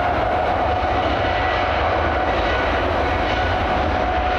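A British Airways Boeing 777-300ER's GE90-115B turbofan engines running as the airliner rolls along the runway: a steady engine whine over a low rumble.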